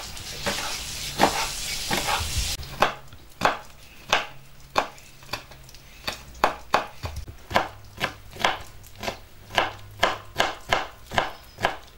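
Knife chopping on a wooden cutting board: a run of sharp chops, about two a second and getting quicker near the end. In the first couple of seconds a steady hiss with a few knocks comes first and cuts off suddenly.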